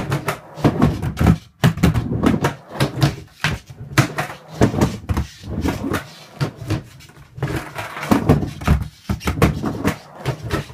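A board clattering and knocking irregularly on a concrete floor as a person balances and shifts their weight on it.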